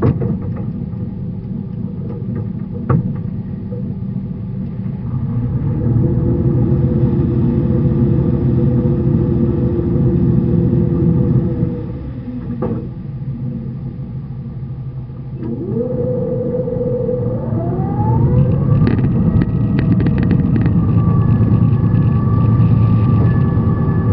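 Sailing barge's inboard engine running during slow manoeuvring: it is throttled up about five seconds in and eased back just before halfway. A little after halfway it is revved up again, with a rising whine that levels off into a steady tone.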